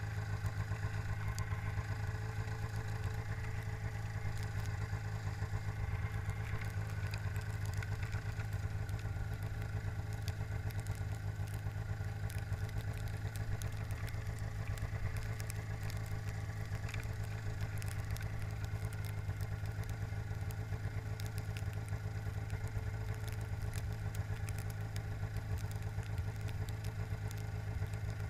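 Arctic Cat ZR 500 snowmobile's two-stroke engine idling steadily while the sled sits stopped, with scattered faint ticks over the even engine note.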